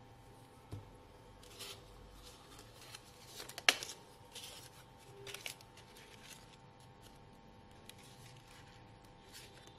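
Faint rustling and handling of stiff card paper, with scattered light taps and one sharp tap on the table about three and a half seconds in, the loudest sound. A faint steady hum runs underneath.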